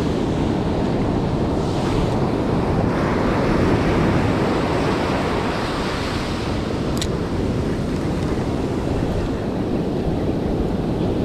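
Ocean surf breaking and washing up over the sand at the shoreline, a steady rushing wash of foam. One short click about two-thirds of the way through.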